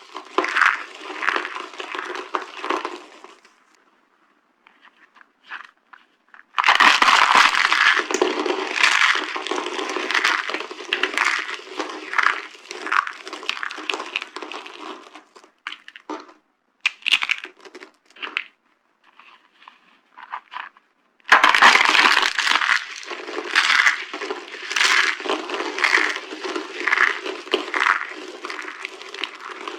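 Dry carved soap being crushed, giving crisp crunching and crackling. It comes in three long spells, with a few scattered cracks in the pauses between them.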